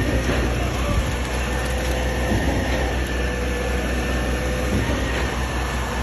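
KCP 24ZX 100 truck-mounted concrete boom pump running steadily while pumping concrete, with a few faint knocks over its low, even machine sound; running smooth.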